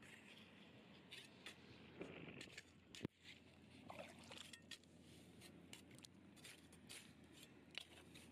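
Faint scraping and clicking of a hand digging tool working soil and stone, with one sharp click about three seconds in.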